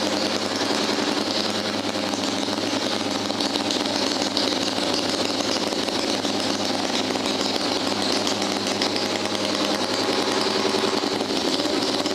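A vintage auto-race motorcycle engine running steadily at a constant speed, with no revving.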